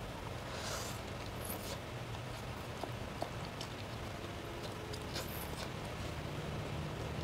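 Mouth sounds of eating spaghetti with prawns: soft chewing and smacking with scattered small clicks, and a few short hissy sounds, about a second in, near two seconds and past five seconds, over a steady low hum.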